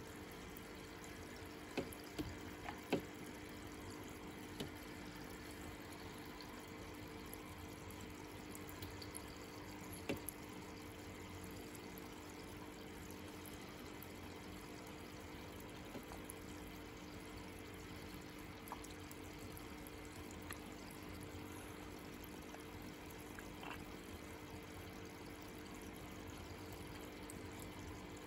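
Faint, steady running or trickling water with a low hum, as from a small aquarium pump. A few light clicks, the sharpest about two to three seconds in and near ten seconds.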